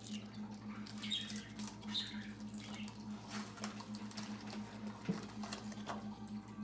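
Trading cards being flipped through and slid past one another by hand: light, scattered scratchy clicks and rustles, over a steady low hum.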